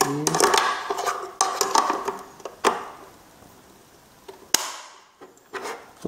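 Plastic knocks and clicks as the black plastic dust bin of a Xiaomi Mi Robot Vacuum Mop 2S is handled and fitted back into its compartment on top of the robot. Three sharp snaps are spread through it, with a quieter stretch in the middle.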